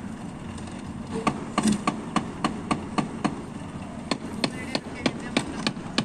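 Rapid, evenly spaced knocks, about four a second, starting about a second in: a tool being struck or tapped repeatedly during the concrete pour.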